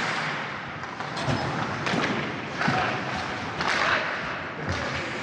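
Ice hockey play: several sharp knocks and thuds from sticks, puck and boards over a steady scraping hiss of skates on the ice.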